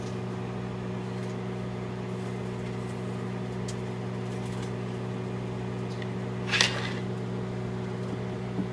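Microwave oven running with a steady hum while heating food, with a short, sharp noise about two-thirds of the way through.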